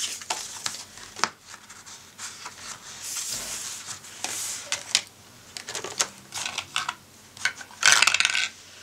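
Paper game cards and a ring binder handled on a wooden table: rustling, sliding and small clicks. Near the end comes a short, louder rattle of a die being rolled.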